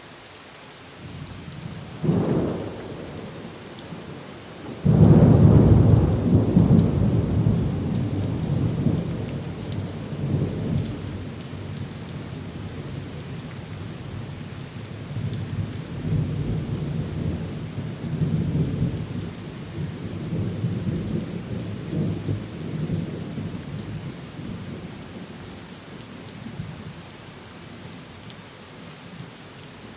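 Heavy rain falling steadily on a tin roof, with a short thunderclap about two seconds in, then a louder clap about five seconds in whose low rumble rolls on in swells and slowly fades.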